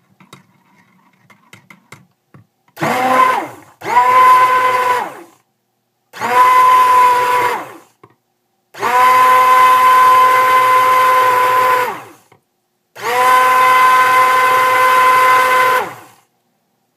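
Stick blender run in five short pulses, each a steady motor whine that starts and stops abruptly, mixing cold-process soap batter that has not yet reached light trace.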